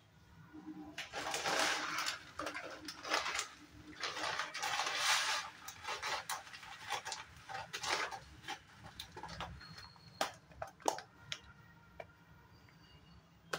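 Milk coming to the boil in a steel pan, bubbling and hissing in irregular surges as it foams up. A few sharp clicks follow about two-thirds of the way in.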